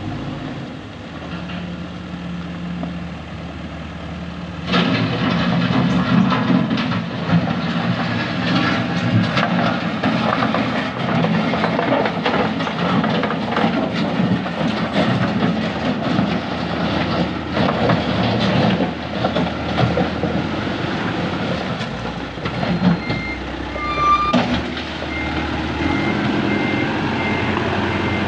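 Cat 416F backhoe loader's diesel engine running under load as it works the road close by, getting much louder about five seconds in. In the last few seconds a reversing alarm beeps steadily.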